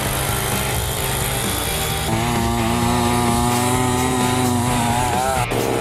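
Small engine of a compact tracked snow vehicle running steadily while towing a skier, under background music. A held, wavering tone comes in about two seconds in and stops shortly before the end.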